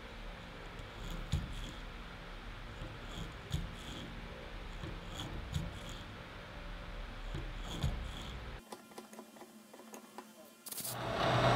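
Broach being hand-fed into the bore of a steel part on a milling machine: faint scraping with a few sharp clicks as it cuts, over a low hum. Near the end a much louder steady machine running noise starts suddenly.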